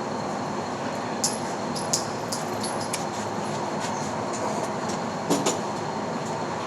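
Steady rumbling background noise with a few light, sharp clicks: one about a second in, one near two seconds, and a close pair a little past five seconds.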